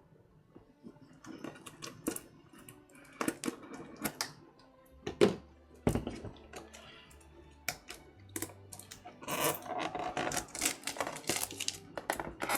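Scissors cutting into the plastic wrap on a cardboard kit box, with scattered clicks and knocks of handling. From about nine seconds in, steady crinkling of the plastic as it is peeled back.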